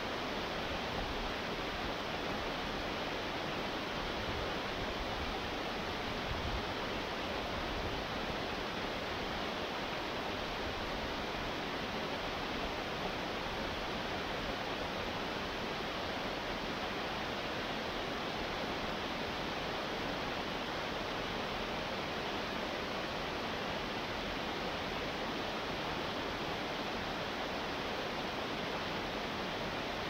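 Waterfall cascading over rocks: a steady, even rush of falling water.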